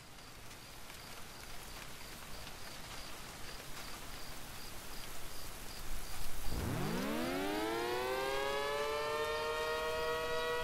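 Synthesized Federal Signal SD-10B siren winding up: about six and a half seconds in, it climbs quickly from a low pitch and settles into a steady chord of several tones, the steady alert signal. Before it starts, only a rain-like hiss of background noise.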